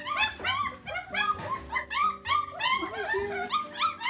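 A litter of German Shepherd puppies whining and yipping, many short high cries in quick succession and overlapping, over background music.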